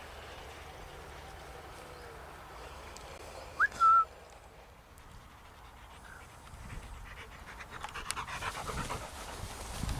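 Labrador retriever cross panting, growing louder over the last few seconds as it runs up through long grass. A brief high tone that rises and then holds, a little before halfway, is the loudest sound.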